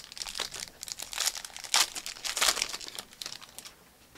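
Foil wrapper of a 2022 Panini Prizm WWE trading-card pack crinkling and tearing as it is opened by hand: a run of irregular crackles, loudest about halfway through, stopping just before the end.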